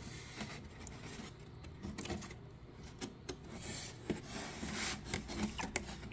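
Faint light water splashes and rubbing as a hand moves through shallow water in a polystyrene foam box, with scattered small clicks.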